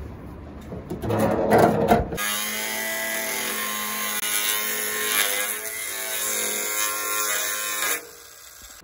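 A few knocks and clanks, then an angle grinder starts about two seconds in and cuts through a steel girder. It runs with a steady whine and a hiss of grinding, dips in pitch briefly as the disc bites, and stops suddenly near the end.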